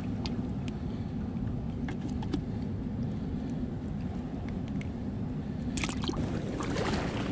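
Steady low rumble of wind buffeting the microphone over rushing spillway water. A cluster of sharp clicks comes about six seconds in, followed by a short rustle.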